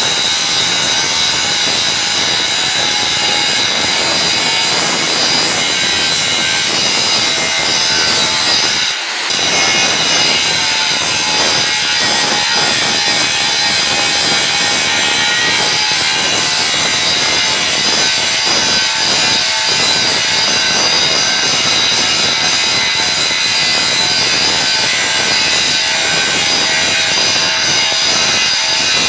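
Angle grinder with an abrasive disc grinding a steel bar, a steady loud grinding noise with a high whine and a brief dip about nine seconds in. The steel's surface is being ground clean ahead of forge welding.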